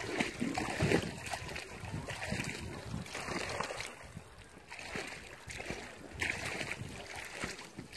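Irregular splashing and sloshing of river water, with a louder burst about a second in, from a strong hooked fish fighting at the surface.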